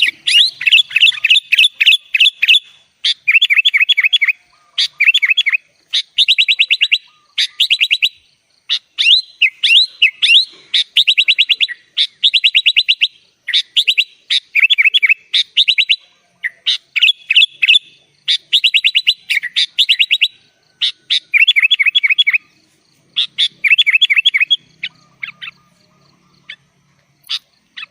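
Sooty-headed bulbul (kutilang) singing: runs of rapid, evenly repeated chirping notes, one phrase after another with short pauses between.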